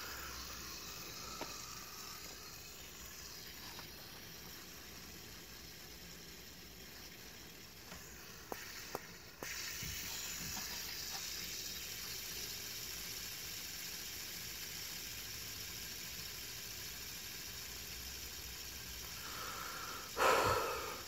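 Fidget spinner whirring steadily on its bearing, held close to the microphone. A few light clicks come about eight to nine seconds in, after which the whir is louder, and a brief louder noise comes near the end.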